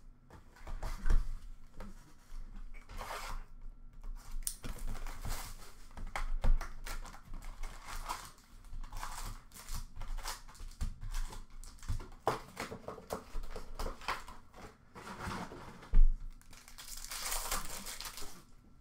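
Clear plastic shrink wrap crinkling and tearing as a sealed hockey card box is unwrapped and its foil packs are handled, with cardboard rustling. A few sharp knocks come through, the loudest about three quarters of the way through, followed by a burst of dense crinkling.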